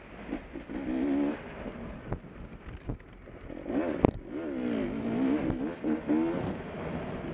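Beta 250RR two-stroke enduro motorcycle engine revving up and down while being ridden, its pitch rising and falling with the throttle. A few sharp knocks break in, the loudest about four seconds in.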